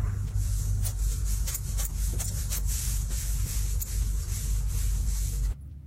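Hands squeezing and stretching fluffy slime mixed with small beads: a dense crackling, crunching rustle full of tiny pops, over a steady low bass. It cuts off suddenly near the end.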